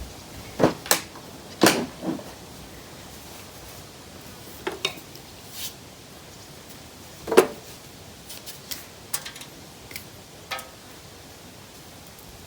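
Hard objects being handled and set down: a series of sharp clinks and knocks, several in the first two seconds and the loudest about seven seconds in, then a few lighter ticks.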